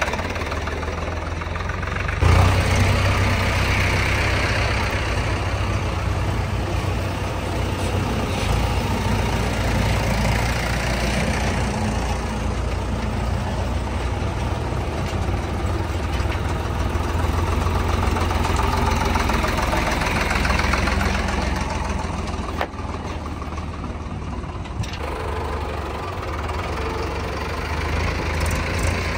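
Heavy diesel engines running steadily at low revs, with a jump in loudness a couple of seconds in and a sharp click later on.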